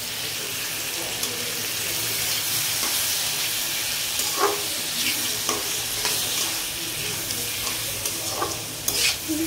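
Giant freshwater prawns and sliced onion sizzling in hot oil in a karai, with a steady hiss. A metal spatula stirs them, scraping against the pan a few times.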